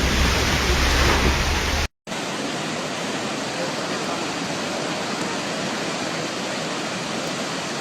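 Steady rushing noise of a waterfall. In the first two seconds a heavy low rumble of wind on the microphone lies under it; then, after a brief dropout at a cut, the water rush goes on evenly without the rumble.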